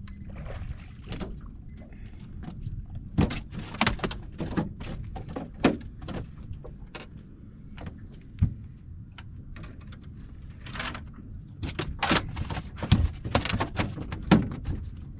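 A series of irregular knocks and clunks over a steady low rumble, coming thicker near the end.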